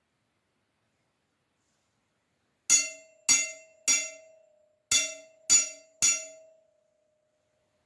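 Metal sai (Okinawan kobudo weapon) struck six times, in two quick sets of three, each strike leaving a bright metallic ring with one steady tone that dies away, ringing longest after the last strike.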